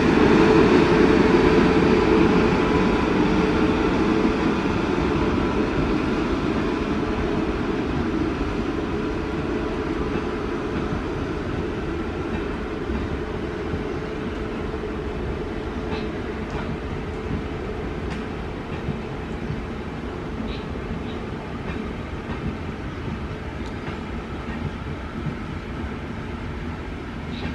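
An Indian Railways express, coaches behind a WAP-7 electric locomotive, rolling past on its way in to a halt, with wheels rumbling on the rails. The rumble fades steadily as the train draws away down the platform.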